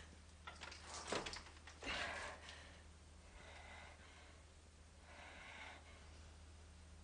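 A distressed woman breathing in gasps and sighs, sharpest about one and two seconds in, then softer and longer, over a low steady hum.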